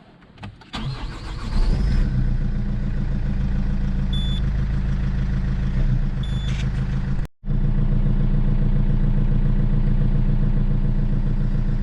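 Peugeot 407's 2.0 HDi four-cylinder diesel cranked by its freshly cleaned and greased Denso starter with a short rising whine. It catches within about a second and then idles steadily, a sign the refurbished starter now works well. Two short high beeps sound midway.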